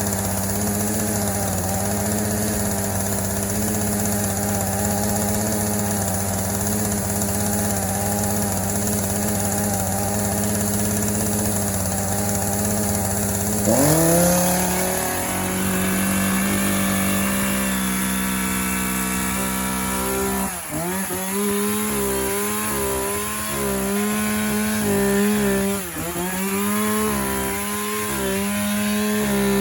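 Chainsaw engine running at a steady speed, then revved up sharply about halfway through. Near the end its pitch dips briefly several times as the chain bites into a giant pumpkin.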